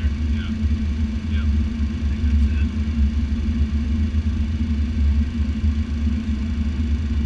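Steady cabin noise in the cockpit of a Cessna Citation X business jet in flight: a deep, even rumble of airflow and engines with a steady hum above it.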